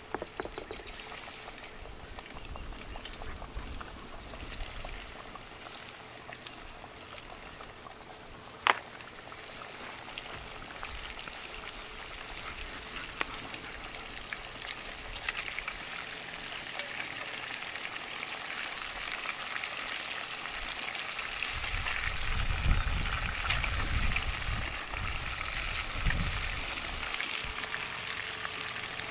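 Catfish pieces deep-frying in hot oil in a cast iron Dutch oven: a steady sizzle with fine crackling that grows louder through the second half. A single sharp click about nine seconds in, and some low rumbling near the end.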